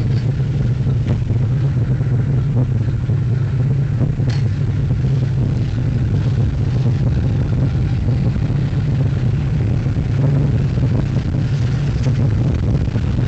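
Gemini roller coaster train running along its track, heard from onboard: a loud, steady deep rumble of the wheels on the rails, with a few faint clacks.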